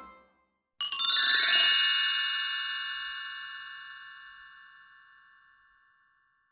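A bright chime sound effect strikes about a second in, a cluster of high bell-like tones that rings out and fades away over about five seconds, just after background piano music cuts off.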